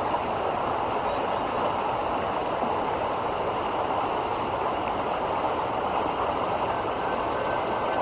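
Fast, shallow river rushing over a wide riffle: a steady, even rush of water. A brief faint bird chirp about a second in.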